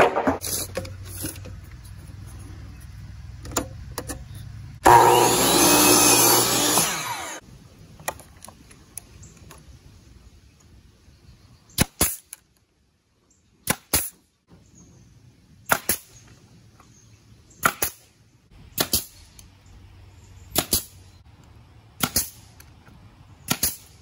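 A loud power tool runs for about two seconds near the start. It is followed by a pneumatic brad nailer driving nails into wooden frame boards, with single sharp shots about every one and a half to two seconds through the second half.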